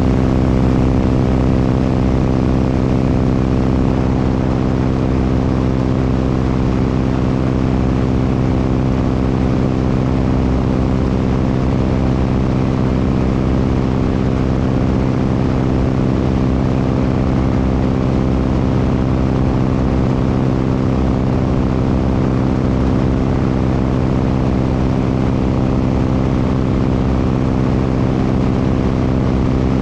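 Propeller airplane's piston engine running at a steady cruise power in flight, a constant engine-and-propeller drone with rushing air.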